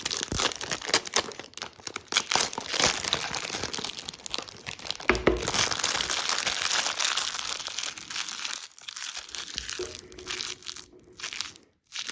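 Crinkly plastic seal wrap being torn and crumpled off a factory-sealed mobile phone box, a dense irregular crackling that thins out near the end.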